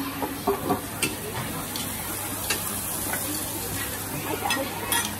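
Yellow pancake (banh chhev) batter sizzling steadily in a pan over a wood fire, with a few sharp clicks and clinks of utensils.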